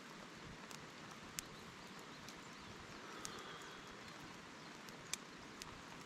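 Steady rain falling, a soft even hiss, with a few scattered sharp ticks and a faint high whistle about three seconds in.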